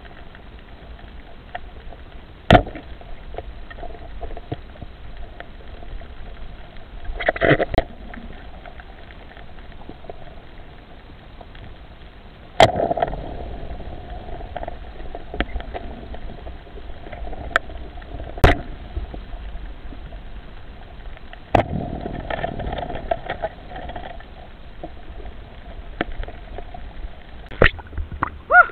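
Underwater sound through a camera housing: a steady hum with a few sharp knocks or clicks at irregular intervals and short bursts of rustling.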